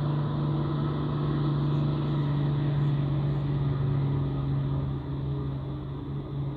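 A truck's deep ship-style air horn (klakson kapal) held in one long, steady blast over the rumble of the truck's engine, fading near the end.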